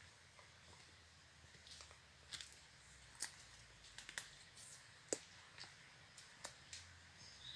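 Faint, irregularly spaced clicks and ticks over a low steady hum, the loudest about three and five seconds in.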